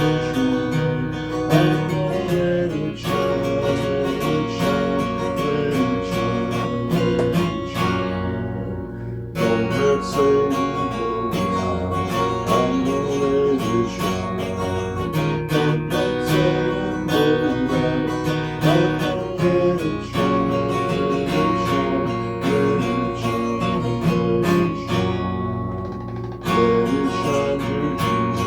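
Acoustic guitar strummed steadily, playing an instrumental passage of chords with no singing.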